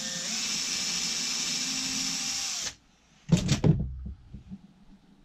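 Cordless drill spinning up and drilling into a plywood panel for about two and a half seconds, then stopping abruptly. Two knocks follow soon after, as the drill is set down on the wooden floor.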